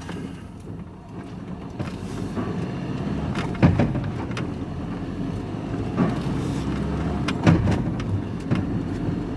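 Vehicle engine running and pulling away, getting louder over the first few seconds, with loose scrap metal clanking around in the back: four sharp clanks over the second half.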